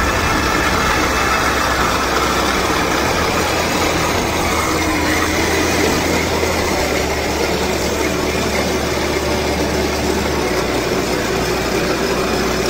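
Heng Long 1/16 Leopard 2A6 RC tank running through a shallow puddle: the steady simulated diesel engine rumble from its built-in sound unit, with the drive motors and tracks churning water. The low rumble shifts in pitch a few seconds in and again near the end.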